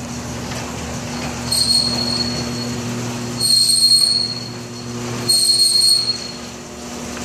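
LiftMaster chain-drive commercial garage door opener running a door, a steady mechanical hum with a high squeal that comes and goes about every two seconds. The run stops near the end.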